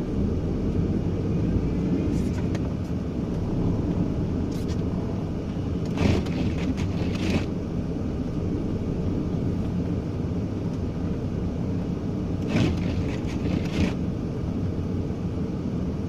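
Steady low rumble of a delivery vehicle driving on a snowy road, heard from inside the cab. Twice, a pair of short brushing sounds rises over the rumble, the two in each pair about a second apart.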